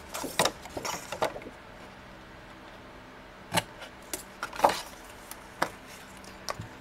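Scissors making short cuts up the score lines of cardstock: a scattering of separate snips and clicks of the blades, the loudest a little past halfway, with the card being handled in between.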